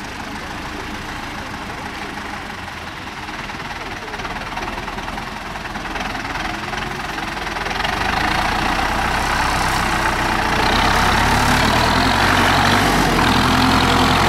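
Zetor 7211 tractor's four-cylinder diesel engine running as the tractor drives through mud, getting louder as it comes close, loudest in the last few seconds.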